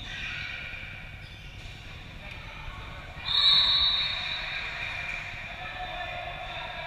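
Dodgeball play on a hardwood gym floor in a large echoing hall: rubber dodgeballs thrown and bouncing, shoes on the court and faint player voices. About three seconds in comes a loud high-pitched squeal that fades over about a second.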